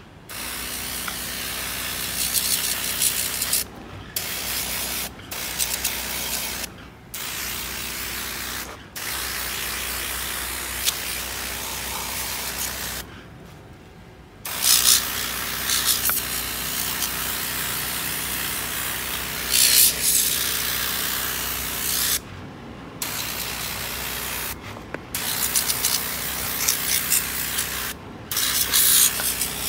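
Pressure washer jet hissing as it sprays the tracks of a 1:14-scale RC excavator, with the washer's motor humming underneath. Spray and hum stop briefly several times as the trigger is let go, the longest pause about 13 seconds in.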